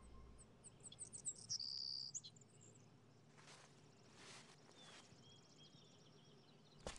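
Faint outdoor ambience of birds chirping: quick, high chirps and a brief held whistle in the first couple of seconds, followed by a few soft swishes.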